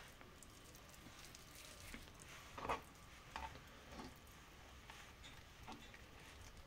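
Faint, scattered soft handling sounds: hands shaping minced meat into balls and rolling them in soft roasted aubergine slices. A soft tap about two and a half seconds in is the loudest.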